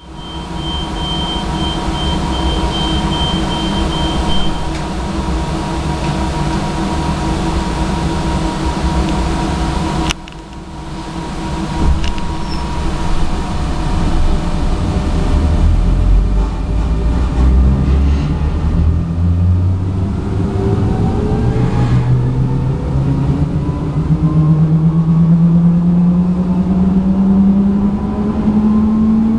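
EN57AL-3007 electric multiple unit starting off, heard from inside the passenger car. First a steady hum and rumble while it stands. From about halfway a whine from the traction drive rises steadily in pitch as the unit accelerates.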